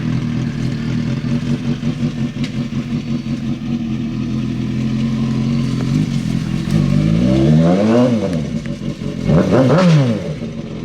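Sportbike engine held at high, steady revs while the bike strains against a rope tied to a car's bent frame, its rear tyre slipping on grass. Near the end it is revved up and let back down twice.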